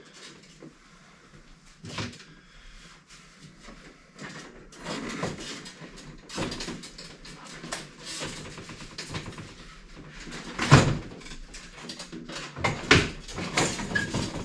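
Car trim parts being handled: irregular rustling and clicks with scattered knocks, the sharpest knock about eleven seconds in and a few more just after.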